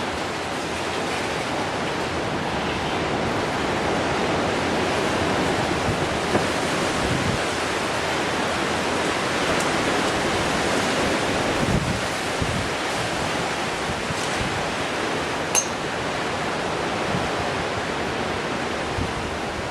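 Strong wind blowing steadily, a continuous rush of air with occasional low buffets on the microphone. A single sharp click about fifteen seconds in.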